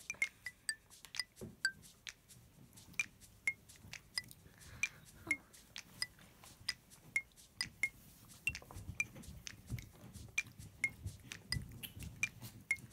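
Light tinkling background music: a music-box-like tune of short, high plinked notes at about two to three a second.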